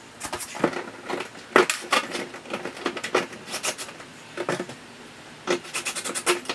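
Irregular clicks and knocks of a hand tool and hardware against the plastic panels of a Keter Westwood storage box being assembled, with a quick run of clicks near the end.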